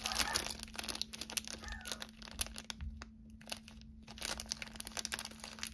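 Thin clear plastic bag crinkling in a quick run of crackles as fingers pull it open and handle the small pieces inside, with a brief lull about three seconds in.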